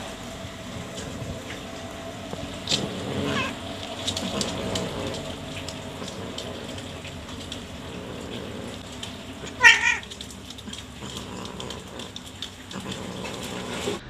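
Domestic cats mating: one cat gives a single short, loud yowl about ten seconds in, after a fainter call about three seconds in.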